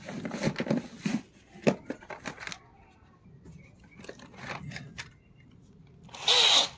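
Tools being fetched and handled, with knocks, rattles and rustling over the first couple of seconds. Near the end comes one short, loud rasping burst.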